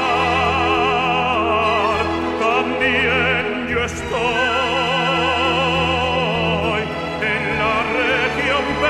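Background music: a voice singing in operatic style with a wide vibrato over sustained low accompaniment.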